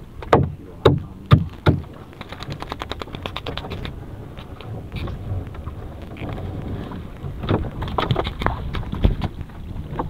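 Gloved hands disentangling a spiny lobster from a nylon gillnet close to the microphone: rustling and scraping with several sharp knocks in the first two seconds, a quick run of clicks about two to four seconds in, and more knocks near the end. Wind and a low rumble run underneath.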